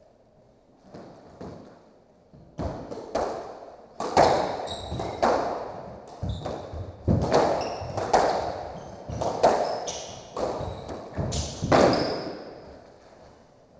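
Squash rally: the ball cracks off rackets and smacks against the court walls, a sharp echoing impact about once a second, with short high squeaks of court shoes on the hardwood floor. The hits stop near the end as the rally finishes.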